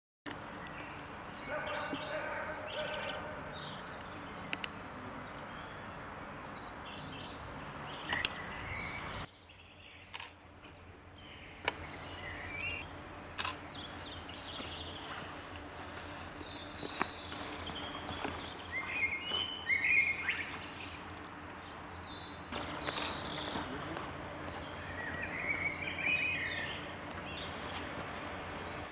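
Small birds chirping now and then over steady outdoor background noise with a faint low hum, with a few short sharp clicks. The background changes abruptly twice.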